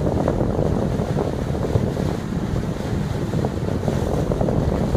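Steady wind buffeting the microphone over the rush of water and engine of a tour boat running at full speed.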